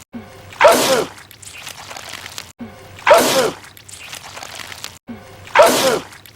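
A man's loud, wet sneeze, looped so that it comes three times about two and a half seconds apart. Each sneeze starts with a short catch of breath, then bursts out and trails off into quieter noise.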